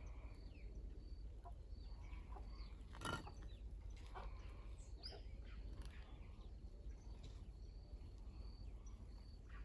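Faint outdoor birdsong: short bird chirps and calls repeating over a low background rumble, with one brief knock about three seconds in.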